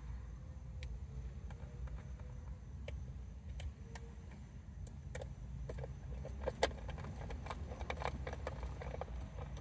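Small sharp clicks and clinks of hard parts being handled and fitted while a fuel pump module is put together by hand. They come sparsely at first and thicken in the second half. A steady low rumble sits underneath.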